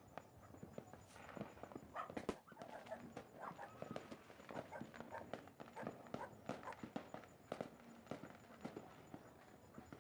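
Distant fireworks crackling: many faint, irregular pops and snaps, a few louder ones about two seconds in.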